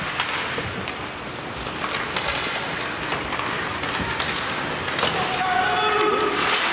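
Youth ice hockey play: skate blades scraping on the ice and sticks clacking on the puck in a few sharp hits, under the steady hum of the rink. Voices from the stands shout a little louder near the end.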